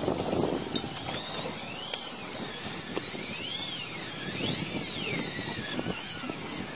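Fly reel whining as the spool turns while a hooked fish is played, in about five rising-and-falling whines, over a steady rush of wind and water.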